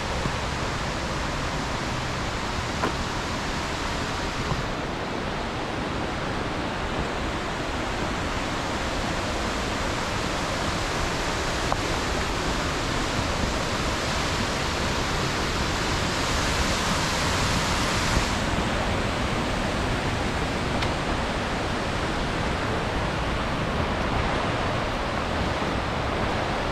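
Steady rushing of falling water. The sound grows brighter about four seconds in and duller again past the middle.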